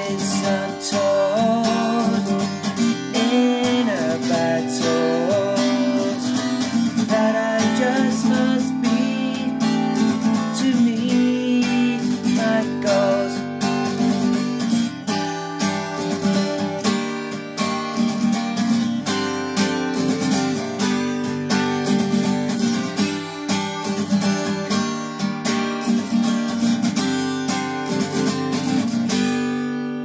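Acoustic guitar strummed steadily in a rhythmic chord pattern, the last chord ringing out and fading near the end.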